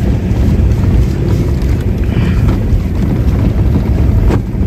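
Steady low rumble of a car's engine and tyres heard from inside the moving car, with wind buffeting the microphone and a brief knock near the end.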